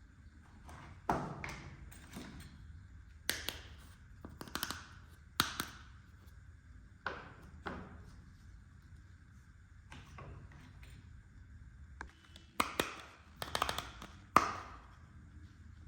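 Small hard plastic toy pieces clicking, tapping and knocking as they are handled and set down: about a dozen sharp clicks with short ringing tails, coming in small clusters, the loudest near the end.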